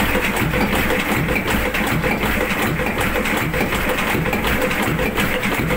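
Old tugboat's slow-turning diesel engine, about 60 horsepower at 250 rpm, running steadily with an even mechanical beat.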